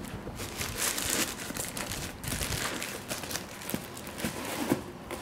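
Rustling and crinkling of an Air Jordan 13 sneaker being handled and turned by hand, broken by a few light knocks near the end.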